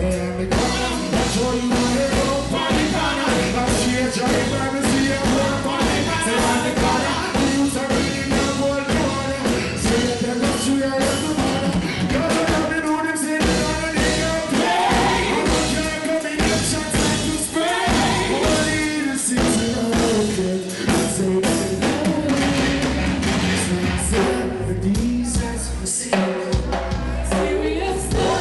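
Live reggae band performance: a male singer sings into a microphone over a full band with drums, bass and electric guitar.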